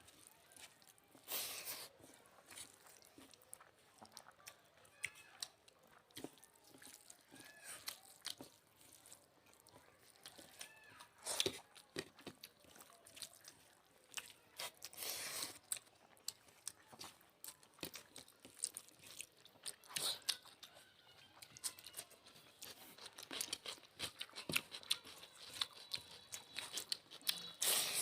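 People eating a meal of rice, chicken curry, egg curry and salad: chewing and crunching, with many small clicks and a few louder crunches every few seconds.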